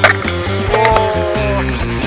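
Background music with a steady bass line and a held melody note in the middle. A sharp clack right at the start is the loudest moment.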